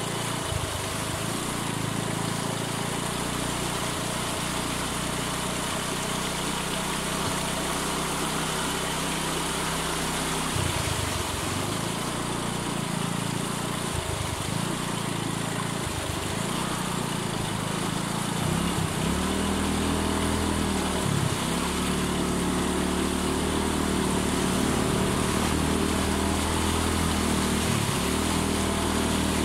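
A Bajaj motorcycle's single-cylinder engine runs at low speed as the bike rides through floodwater, over a steady rush of water and wind. About two-thirds of the way through, the engine note rises and grows louder.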